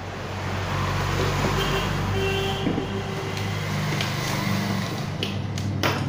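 A motor vehicle engine running steadily, a low even hum with road-traffic noise.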